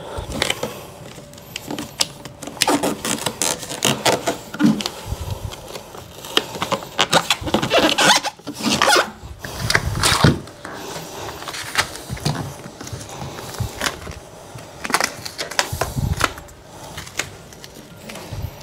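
Plastic vapour-barrier film and adhesive sealing tape rustling and crinkling as hands press and smooth strips of tape around a plastic pipe, with irregular scrapes and rubs, some louder than others.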